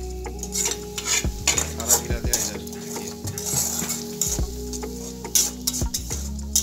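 A metal spatula scraping and clinking against a metal kadai, stirring onions and ground spices frying in hot oil, which sizzles under the strokes.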